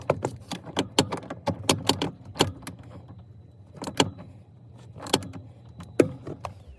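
Sharp metallic clicks and clinks of a seat belt anchor bolt and its washers being refitted into a 1967 VW Beetle with hand tools. The clicks come quickly at first, then thin out to a few separate clicks.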